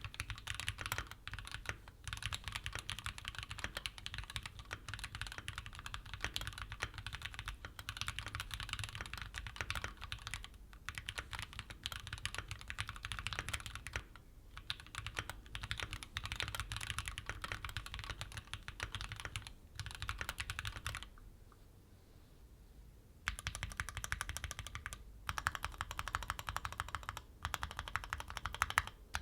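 Fast typing on a Keychron Q5 aluminium mechanical keyboard fitted with Gateron G Pro Red linear switches: a dense run of keystrokes that breaks off for about two seconds about three-quarters of the way through, then starts again.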